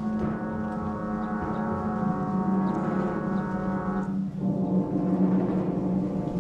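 Dramatic orchestral film score: sustained low chords with a gong-like swell, the texture changing about four seconds in as percussion comes forward.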